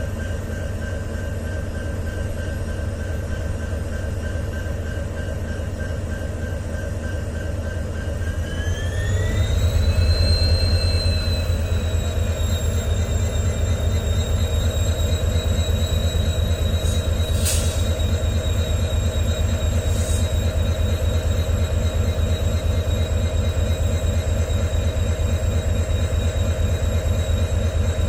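EMD 710G3B two-stroke diesel engine of a WDG4 locomotive idling with a steady low hum and high whining tones. About a third of the way in, the whine rises in pitch and the engine gets louder, then holds steady at the new pitch; two short high-pitched sounds come a little later.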